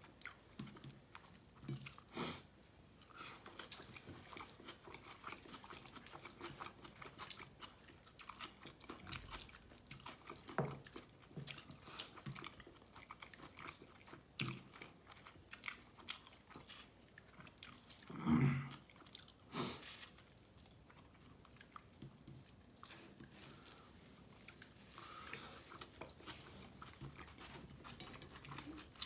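A person chewing and biting food close to the microphone, with wet smacks and many small irregular clicks. Two louder knocks come about two-thirds of the way through.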